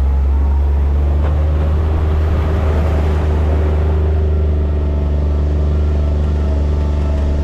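Motor vehicle engine running at a steady speed up close: a loud, even low drone that holds its pitch throughout.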